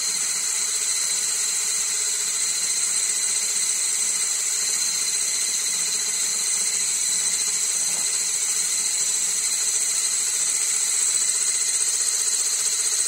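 Electric hand blender with whisk rods running steadily, beating cake batter in a bowl: a continuous high motor whine.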